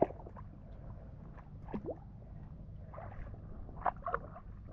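Water sloshing and dripping as a woven bamboo basket is lifted through shallow water thick with weeds, a few soft splashes scattered through it.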